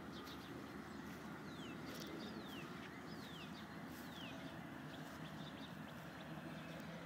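Steady rushing of the Youghiogheny River running high in flood. A songbird gives about four quick falling whistles in the first half, with a few faint chips.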